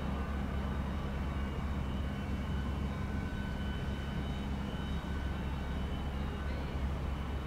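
Embraer E190's twin GE CF34 turbofan engines running at low power as the jet rolls along the runway after landing: a steady low rumble with a faint, even whine above it.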